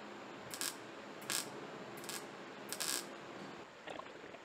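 MIG welder tacking a two-piece sheet-metal rust patch together: four short bursts of welding, roughly three-quarters of a second apart, the last a little longer.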